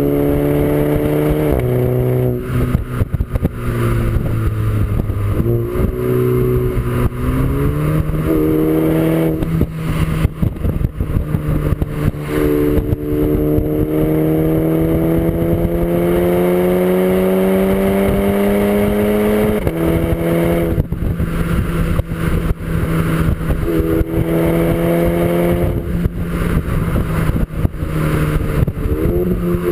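Engine and Milltek exhaust of a tuned 270 bhp 2012 SEAT Ibiza Cupra under way, its note rising and falling with the revs. The note dips a few times, then climbs slowly for several seconds and drops suddenly about twenty seconds in.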